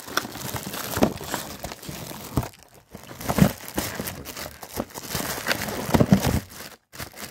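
Clear plastic wrap crinkling and crackling as it is handled, with many sharp crackles, stopping about six and a half seconds in.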